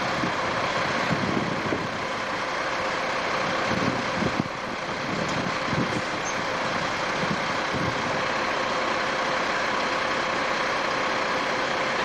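Peterbilt semi truck's diesel engine running steadily at idle, with a constant low hum. The sound drops slightly about four seconds in.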